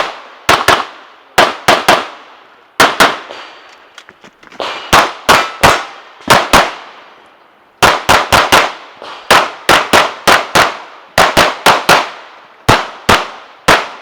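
Glock 34 9 mm pistol fired rapidly in a competition stage: a long string of sharp shots, mostly in quick pairs and threes a fraction of a second apart, with short pauses between groups as the shooter moves between targets.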